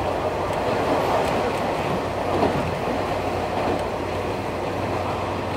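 Nankai 2000 series electric train with Hitachi early GTO VVVF inverter drive, running at speed: a steady rumble of wheels and traction motors heard from inside the car, with a low hum and a couple of faint clicks over rail joints.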